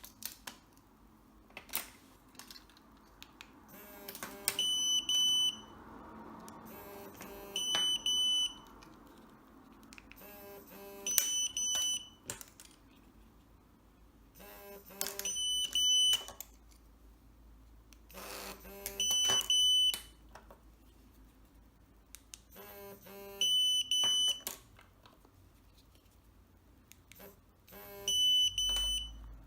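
Pandora Multibrand 605 signal tester beeping in seven short bursts, about one every four seconds. Each burst follows a few clicks of a car key's button, and each confirms that the key's signal was received and stored.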